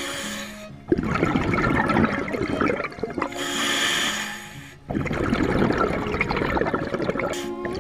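Scuba diver breathing through a regulator underwater: a hissing inhale followed by a long bubbling exhale, twice. Faint steady tones hum underneath.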